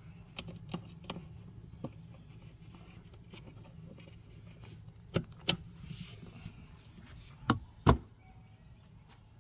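Scattered light clicks and rattles of a portable fridge's wire basket and plastic divider being handled inside its plastic cabinet, then two louder knocks close together near the end as the lid is shut.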